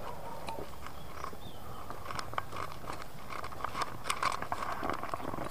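Footsteps of hikers walking on a dirt path, short scuffs and crunches that come more often and louder from about two seconds in.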